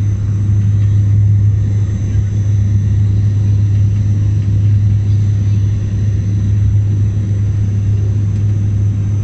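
Steady, loud propeller drone inside the cabin of a Dash 8 Q400 turboprop, with a strong hum near 100 Hz over a low rumble.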